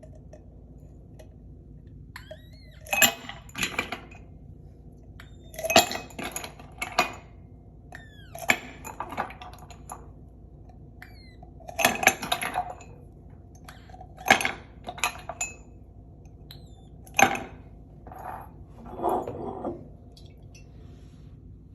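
Cutlery and crockery clinking in small groups of strikes, a cluster every two to three seconds, each strike ringing briefly.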